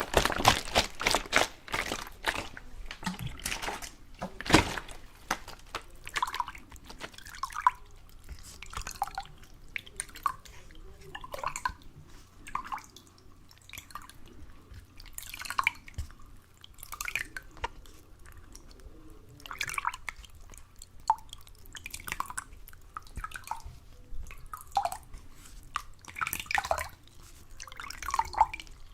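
Water dripping and plinking, each drop a short pitched plop. A quick flurry of drips in the first few seconds gives way to single drops, roughly one a second and irregularly spaced.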